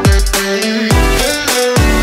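Background music with a steady beat: a deep bass drum that drops in pitch on each hit, about once a second, under sustained synth-like tones.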